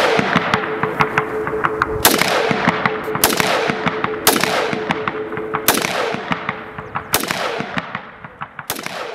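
Gunfire: six heavy shots spaced a second or so apart, each with a long echoing tail, among scattered lighter shots and a steady hum, the whole fading away near the end.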